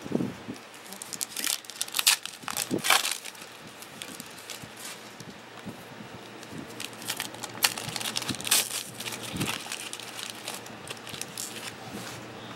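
Foil wrappers of Panini Prestige football card packs crinkling and tearing as the packs are ripped open by hand. The crackling comes in irregular bursts: right at the start, around two to three seconds in, and again from about seven to nine and a half seconds in, with lighter rustling between.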